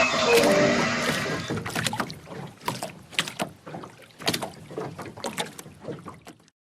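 Film sound effects: a loud, dense clattering rush dies away over the first second and a half or so, then scattered sharp knocks and clanks come at irregular intervals and grow fainter before the sound cuts off.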